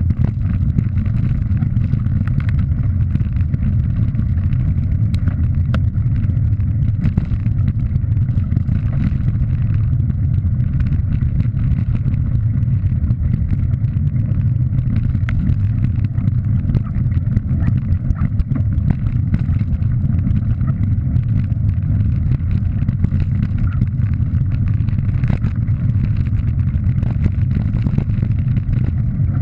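Steady low rumble of wind buffeting and tyres rolling on a gravel dirt track, heard through a bike-mounted action camera while riding, with frequent small clicks and rattles.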